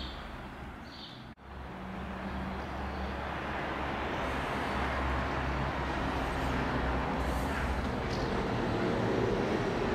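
Outdoor town-street ambience: a steady rush of traffic noise over a low hum, growing slightly louder, with a few bird chirps in the first second. The sound cuts out briefly about a second and a half in.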